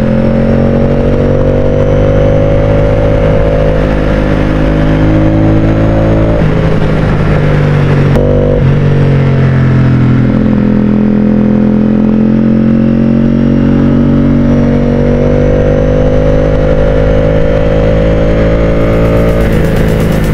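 Ducati Streetfighter V4's V4 engine running under way in third gear. The engine note sags for a few seconds partway through as the throttle eases, then climbs back and holds steady.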